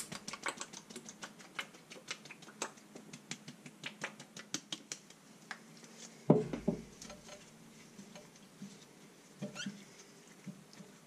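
Habanero hot sauce being shaken from its bottle over a raw chicken: a quick, irregular run of small ticks and splats. About six seconds in there is a thump as the bottle is set down on the counter, followed by faint rubbing of gloved hands over the chicken.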